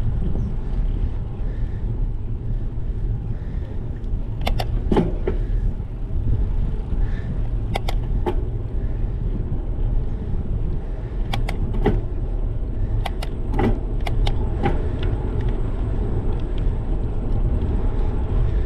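Wind rumbling on a bicycle-mounted action camera's microphone while riding on asphalt, with tyre noise and several sharp clicks and rattles from the bike scattered through the middle.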